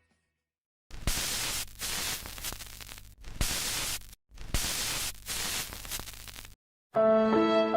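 Static-like hiss in three abrupt stretches, separated by short breaks, followed by music starting near the end.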